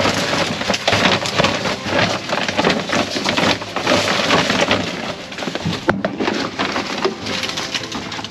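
Plastic produce and bread bags crinkling and rustling as hands dig through a dumpster full of bagged groceries, a dense, continuous crackle with one sharp knock about six seconds in.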